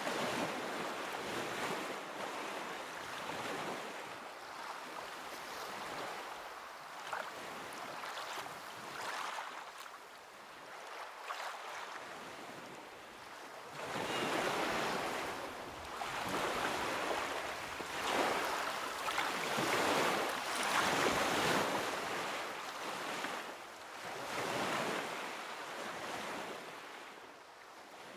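Ocean waves washing in and drawing back, the surf swelling and fading every few seconds, with the loudest surges a little past the middle.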